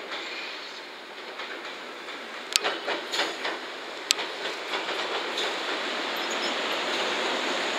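A JR West 103 series two-car electric train running over the track, its wheels clacking over rail joints and points with two sharp knocks about two and a half and four seconds in. The running noise grows louder as the train draws near.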